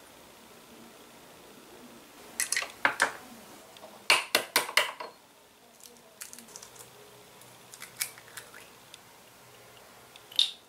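Sharp little clicks and taps of miniature kitchenware being handled: a quick cluster of clicks a couple of seconds in, a second, louder cluster about a second later, then a few scattered ticks and one last sharp click near the end.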